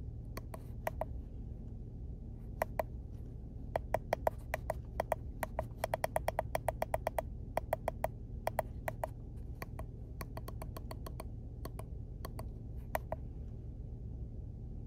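Button presses on a handheld OBD2 code reader, short sharp clicks or key beeps, some single and some in quick runs of about six a second as the menu is scrolled and a trouble code is keyed in, over a steady low hum.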